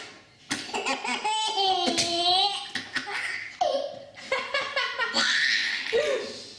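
A baby laughing heartily in repeated high-pitched peals, set off by its mother's sneezes. There is a noisier burst about five seconds in.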